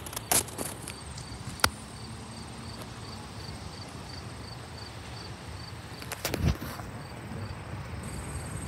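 Insects chirping steadily in a regular pulse, about two and a half chirps a second, over a thin high continuous trill and a low rumble. A few sharp clicks break in, the loudest about six and a half seconds in.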